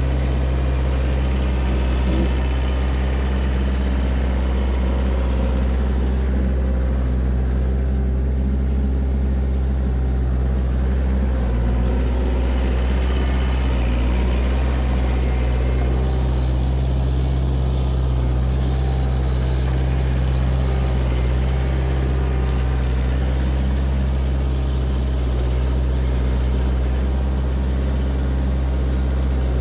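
Kioti compact tractor's diesel engine running at a steady speed while it pulls a box blade over a gravel road.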